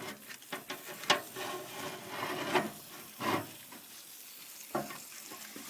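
Metal grill parts being shifted and lowered over a wood fire: scraping and knocking of metal, with a sharp clank about a second in and another knock near the end.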